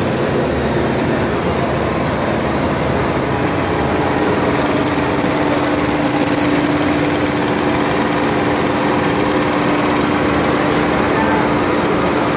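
Susmatex crochet knitting machine running at full speed while knitting elastic tape: a loud, steady, very rapid mechanical clatter with a constant hum that grows a little stronger about four seconds in.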